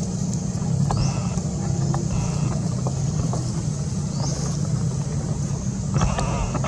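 Steady low rumble of a running engine, loud and unchanging. A few short, high rising chirps sound over it, about a second in, past the midpoint and near the end.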